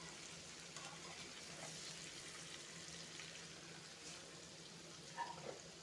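Faint sizzle of fried vegetables in hot oil in a kadai, with a few light scrapes and ticks of a steel spoon scooping them out.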